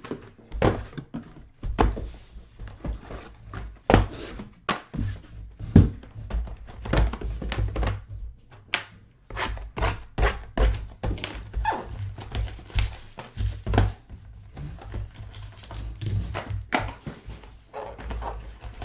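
Irregular thunks and knocks with some crinkling: trading-card boxes and packs being handled, opened and set down on a table.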